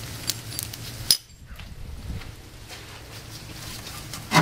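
Metal hand tools clinking: a few light clinks, one sharper clink about a second in, over a low steady hum.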